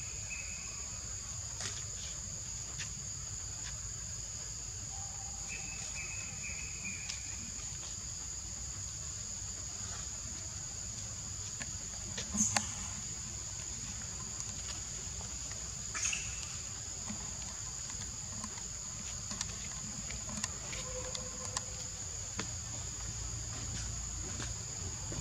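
Steady high-pitched drone of insects, with a few short faint chirps and two brief sharp clicks around the middle.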